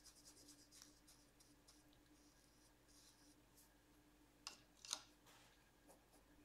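Near silence, with faint soft strokes of a small paintbrush on paper and two brief light clicks about two-thirds of the way in, over a faint steady hum.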